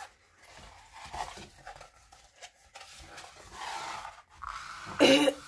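Stiff diamond painting canvas with its plastic release film rustling and crinkling as it is unrolled from a tight roll and handled, with a short vocal sound near the end.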